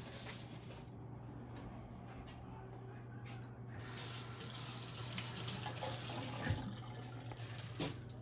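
Kitchen tap running water into a stainless-steel sink, starting a little before halfway in, over a low steady hum.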